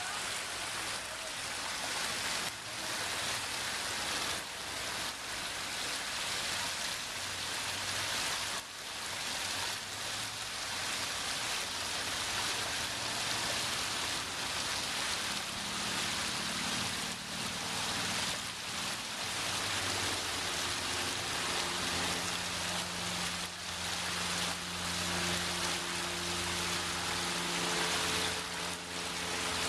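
Water of a six-tier waterfall pouring and splashing, a steady rushing noise. A low steady hum joins in about halfway through.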